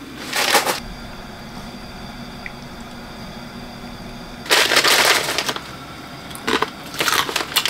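A crunchy snack being bitten and chewed and its plastic wrapper crinkling, in three short bursts, over a faint steady hum.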